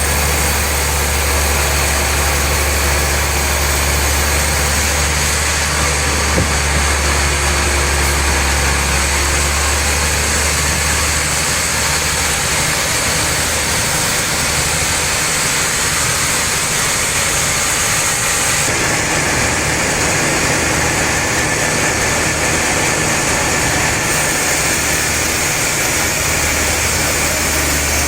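Sawmill saw machinery running steadily: a low, engine-like hum with a hiss above it, the tone shifting slightly about two-thirds of the way through.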